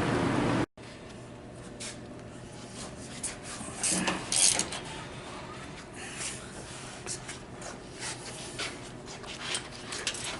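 A steady loud whir cuts off abruptly under a second in. It is followed by scattered light metallic clicks, rattles and knocks of hardware being handled on a commercial oven, loudest about four seconds in.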